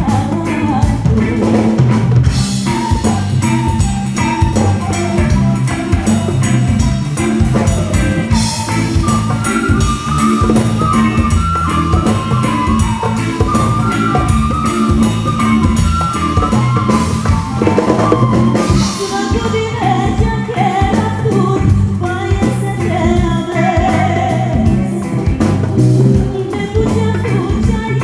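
Live band playing a traditional Balkan song: a woman singing over drum kit and electric bass, with keyboard and a flute carrying a melodic line in the middle.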